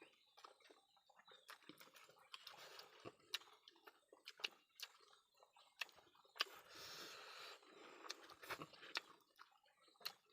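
Faint chewing and eating sounds: irregular sharp mouth clicks and smacks of a person eating food.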